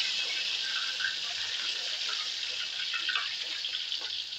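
Hot oil sizzling steadily around a tilapia head deep-frying in a wok, its second side being fried until golden.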